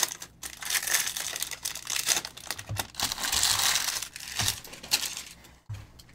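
Plastic wrappers and trading cards being handled on a table: irregular crinkling and rustling, with a few soft knocks.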